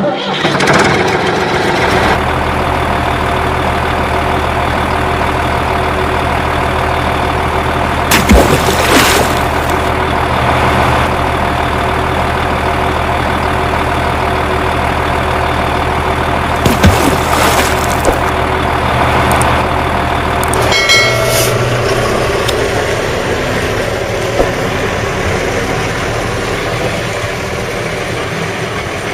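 Heavy vehicle engine running steadily at idle, with a few short loud knocks about 8 and 17 seconds in; about 21 seconds in the engine note changes.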